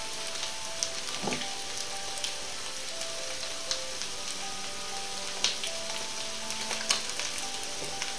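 Meat patties (Fleischpflanzl) from raw mince frying in hot oil in a pan: a steady sizzle with scattered pops and crackles. A faint tune plays behind it.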